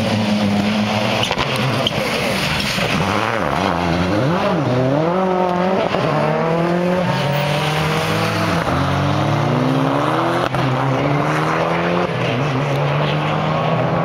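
Rally car engines revving hard through gear changes, the pitch climbing and dropping again and again as the cars accelerate and brake through the chicanes, with a faint squeal of tyres.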